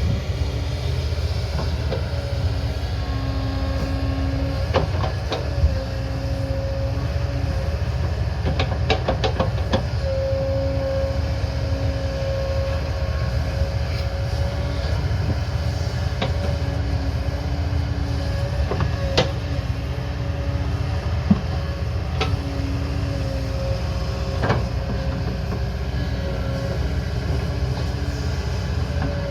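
Diesel engine of a heavy earthmoving machine running under load, a steady low rumble with a humming tone that comes and goes. Occasional sharp knocks cut through it, a quick cluster of them about nine seconds in.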